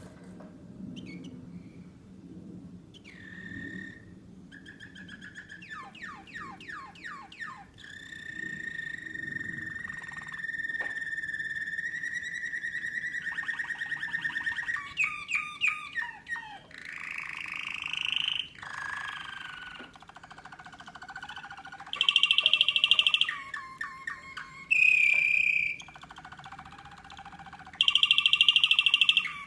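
American Singer canary singing a varied song: quick repeated trilled notes, then a long held whistle-like tone, then louder rolling phrases in short bursts near the end.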